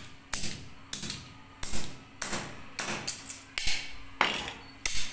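Hammer repeatedly striking and crushing a plastic computer mouse, roughly two blows a second, each a sharp crack with crunching plastic.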